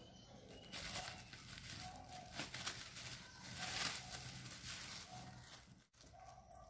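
Thin plastic bag crinkling and rustling under a squirming baby monkey, in uneven bursts, with a few short faint squeaks.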